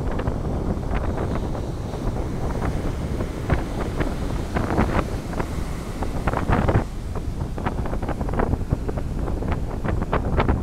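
Waves of the Arabian Sea breaking and washing up a sandy beach, with heavy wind rumble and buffeting on the microphone.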